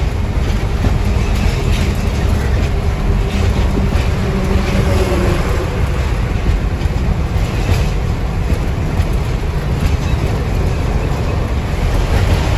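A truck's diesel engine and road noise heard from inside the cab while driving, a loud, steady low rumble.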